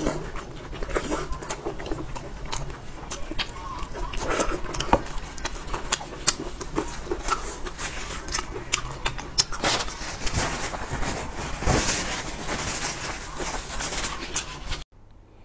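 Close-miked eating: wet chewing and lip-smacking with many small clicks, cutting off abruptly near the end.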